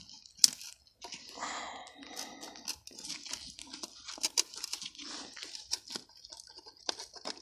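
Lid of a rusted steel box being prised open by gloved hands: faint scattered scrapes, crunches and sharp clicks of corroded metal.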